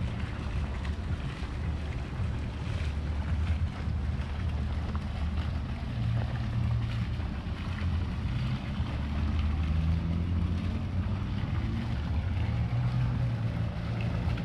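Wind buffeting the camera microphone as a shifting low rumble, over the steady splashing of a small pond fountain.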